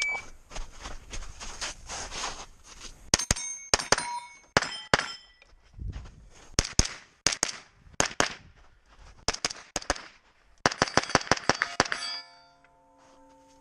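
A shot-timer start beep, then a rapid string of rifle shots at steel targets, the plates clanging and ringing on hits, in quick groups of several shots. The shooting stops about 12 seconds in, and the last plate goes on ringing faintly.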